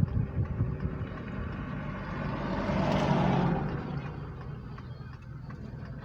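Road vehicles: a steady engine hum, with a vehicle passing by that swells and fades about halfway through.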